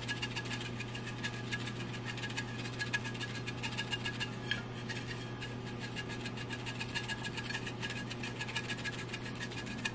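Dried oregano being added from its container: a rapid, even run of small crackling clicks over a steady low hum.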